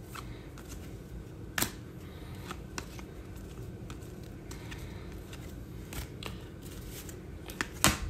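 Glossy Panini Mosaic baseball cards being flipped through by hand, each card slid off the front of the stack and onto the back. Scattered sharp card-edge clicks and snaps, the loudest about a second and a half in.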